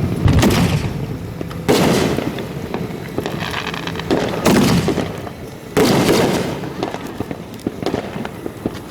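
Fireworks going off close by: four big booms, each trailing off into a rumble, with smaller pops and crackle between them.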